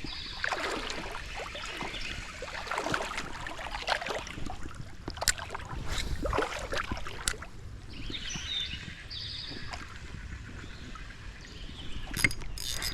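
Creek water splashing and sloshing in irregular swishes, as of wading through the shallow current, with a few sharp clicks scattered through.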